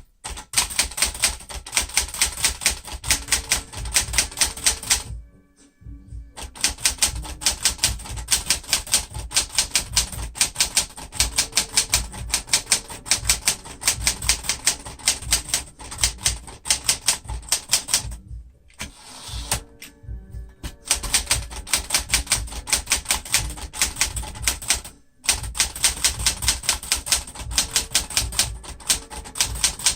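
Sears Citation 12 manual typewriter, built by Smith Corona, typing in quick runs of sharp key strikes, with a few short pauses between runs.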